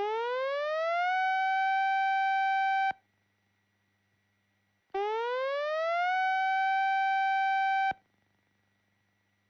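Synthesized siren-like alert tone: it rises in pitch for about a second, holds steady for two more, then cuts off abruptly. It sounds twice, about five seconds apart, signalling an emergency alert.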